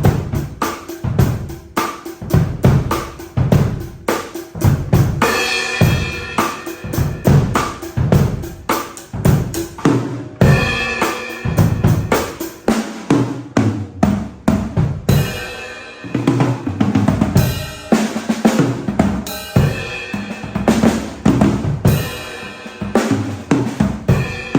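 MK acoustic drum kit with its stock heads and cymbals, played as a continuous groove of kick drum and snare. Cymbal crashes come every few seconds, and the sound is raw and unprocessed.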